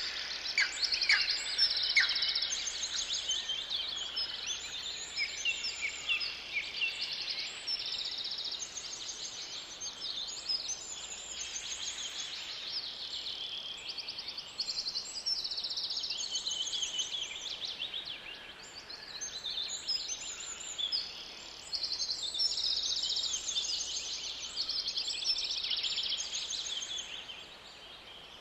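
A chorus of several wild birds singing in a forest, overlapping trilled phrases and chirps, with a few quick downward-sweeping notes near the start.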